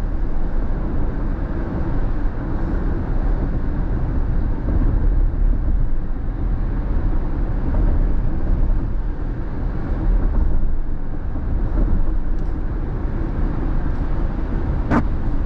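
Steady road and tyre noise of a car cruising on a wet freeway, heard from inside the cabin, with one short click near the end.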